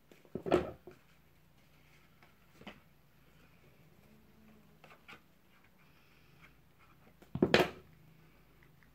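Crafting handling noises on a wooden tabletop: two short clatters, about half a second in and about seven and a half seconds in, with a few faint taps and rustles between. The second comes as a plastic glue bottle is set down on the table.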